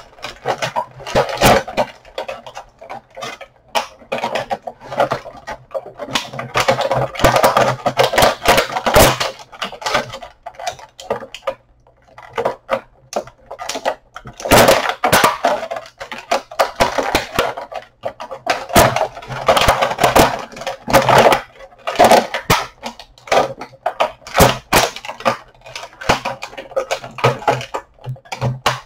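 Action-figure packaging being worked open by hand: irregular rustling, crackling and sharp clicks of handled packaging and parts, in uneven spurts with short pauses.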